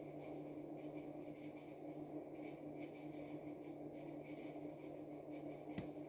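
Low, steady machine hum of room equipment, with faint light ticks of handling at a counter and one sharp knock near the end.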